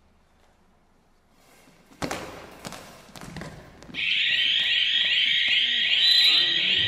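A goalball strikes the floor about two seconds in and rattles as it rolls, its internal bells jingling. About four seconds in, the end-of-half buzzer sounds with a loud, steady, high-pitched tone.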